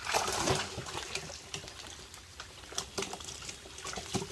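Water splashing briefly at the start, then scattered drips and small splashes.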